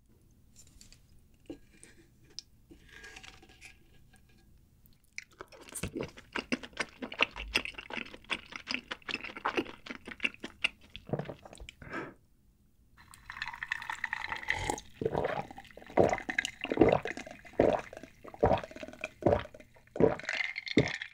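Close-miked mouth sounds of eating, then a drink gulped from a glass jar in a run of loud swallows, one about every half second, through the second half.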